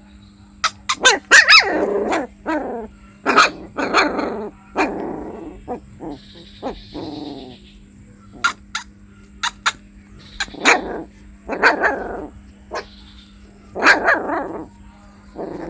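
Puppy crying: an irregular run of short yelps and whimpers, many falling in pitch, with sharp clicks between them and a faint steady hum underneath.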